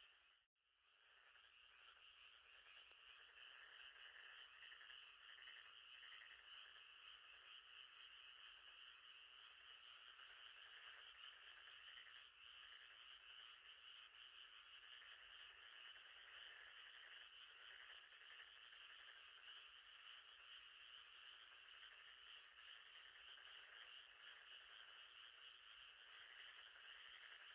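Faint nighttime chorus of frogs, a steady dense trilling that goes on without a break. The sound cuts out briefly about half a second in, then returns.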